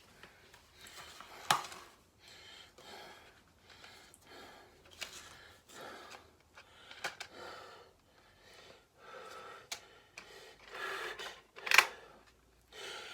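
Hands handling a DVD set in its cardboard slipcover and plastic case: short rustling and sliding bursts with small clicks, and two sharp clicks, one about a second and a half in and one near the end.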